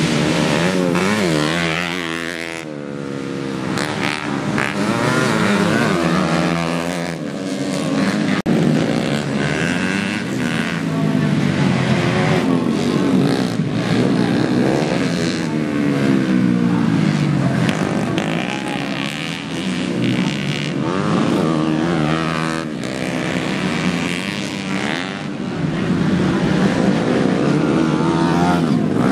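Several modified 110cc four-stroke underbone motorcycle engines racing together, each revving up and dropping back again and again as the bikes accelerate, shift and slow for corners.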